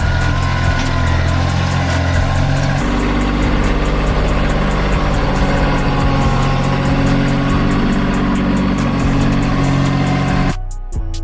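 Tractor engine running steadily, its note changing about three seconds in. Music cuts in abruptly near the end.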